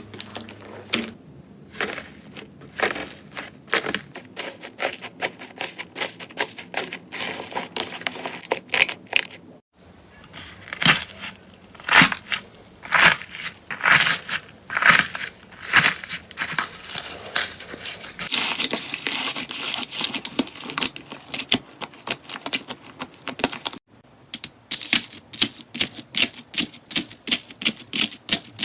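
Slime being pressed and squeezed by hand, giving rapid sticky crackling pops and clicks. The sound breaks off abruptly twice as one slime clip cuts to the next.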